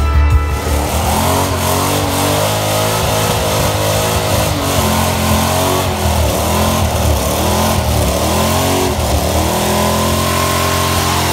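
A car engine revs hard during a burnout, its pitch swinging up and down again and again as the driver works the throttle with the rear tyres spinning. Rock music fades out in the first second.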